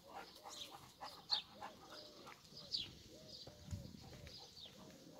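Faint bird calls: a steady run of short, repeated low calls, about two or three a second, with thin high chirps over them. There is a brief low thud nearly four seconds in.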